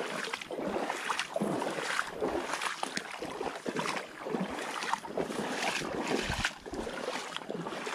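Wading steps through shallow water: legs in waders sloshing and splashing with each stride in a steady walking rhythm.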